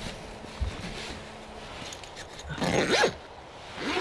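Faint rustling of bedding and tent fabric, then about three seconds in one short dog vocalisation that rises and falls in pitch.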